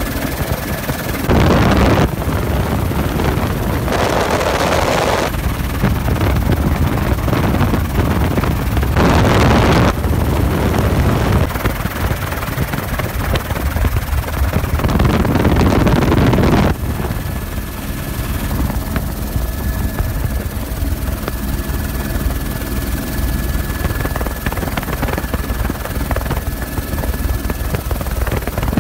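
Helicopter flying with its doors off: a steady rotor and engine drone mixed with wind. Gusts of wind hit the microphone four times in the first half. After that the wind eases and a thin, steady high whine comes through the drone.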